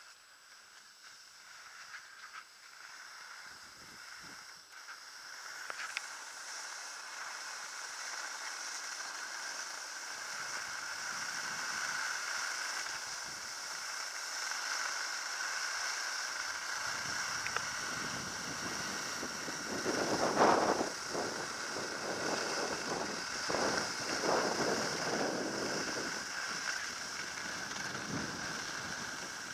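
Skis sliding over groomed snow with wind rushing across the camera microphone, growing louder as speed builds, with a louder scrape of the skis about twenty seconds in.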